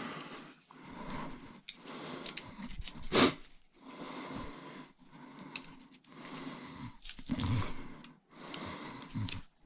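Scrap copper wire and small metal pieces being cut and stripped by hand: repeated scraping, tearing strokes with short gaps, and a sharp metal clink about three seconds in.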